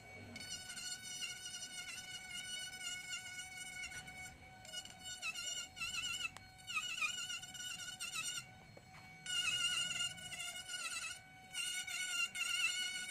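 Handheld electric rotary carving tool whining as its bit cuts into ngọc am wood. The pitch wavers and dips as the bit bites, and the whine eases briefly twice in the second half.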